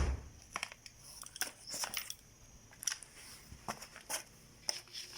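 Metal parts of a Colt M4 .22 LR rifle clicking and clattering as it is taken apart by hand: a string of sharp, irregular clicks, with a louder knock right at the start.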